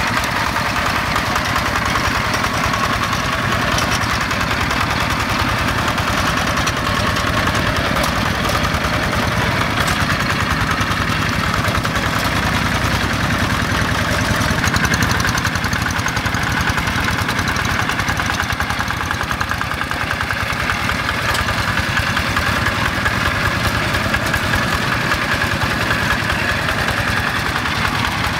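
Yanmar single-cylinder diesel engine on a Quick G1000 two-wheel hand tractor running steadily under load as it pulls a plough through flooded rice-paddy mud.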